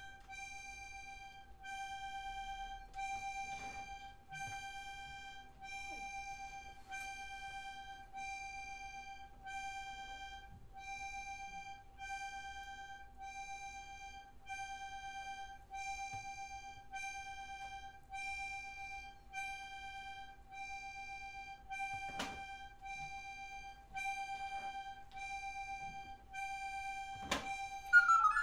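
Music from a single instrument playing the same note over and over, each held about a second and restruck roughly every second and a quarter. There are two sharp knocks near the end.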